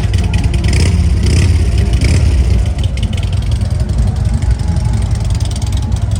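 Motorcycle engines rumbling steadily, with brief louder surges about one and two seconds in.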